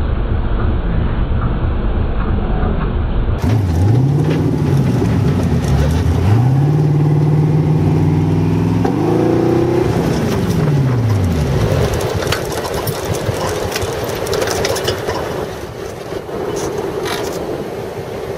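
Twin-turbo LS V8 sand rail engine revving and pulling: its pitch climbs and falls, holds high for a couple of seconds, climbs again and then drops away into a steady rushing noise. The sound changes abruptly a few seconds in.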